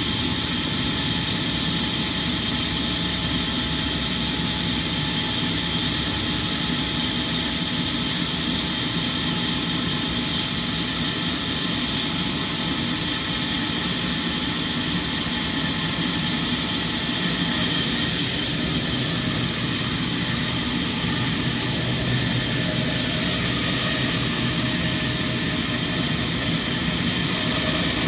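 Sawmill machinery running with a steady mechanical drone, growing a little louder and brighter about two-thirds of the way through.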